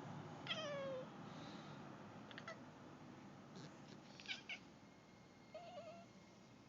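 Turkish Van cat vocalising at birds outside a window. A falling meow comes about half a second in, followed by several short, sharp chirps and a brief wavering call near the end.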